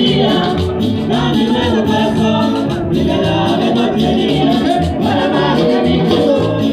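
Music with singing over a repeating bass line.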